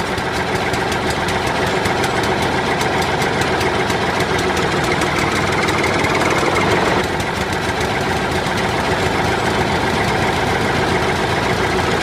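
Engine running steadily with a fast, even knocking beat, the sound given to a toy crawler truck as it tows a stuck toy tractor on a chain.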